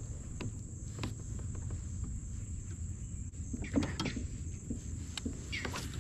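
Small clicks and knocks from handling fishing gear in a kayak, scattered through, with the loudest cluster about four seconds in and another near the end, over a steady low rumble and a constant thin high hum.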